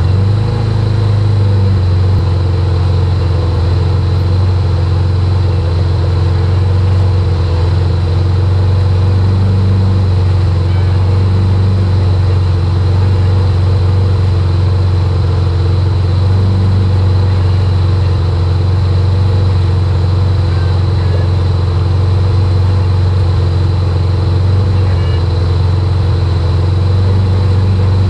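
Can-Am Commander's V-twin engine running at a steady idle, warming up so the coolant circulates while air is burped out of the radiator.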